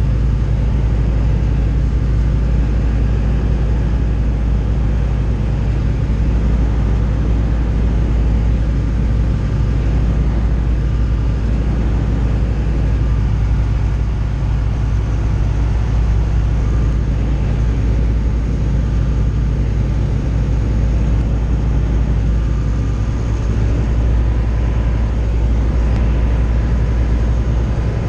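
Steady drone of a Tecnam single-engine light aircraft's engine and propeller, heard from inside the cockpit in level flight. The note stays low and even throughout, with no change in power.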